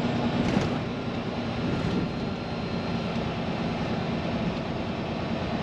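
Steady engine and road noise of an automatic semi truck, heard inside the cab as the truck rolls slowly through a yard.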